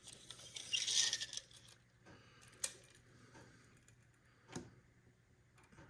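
A plastic action figure being handled: a short rustle in the first second or so, then a few sharp single clicks.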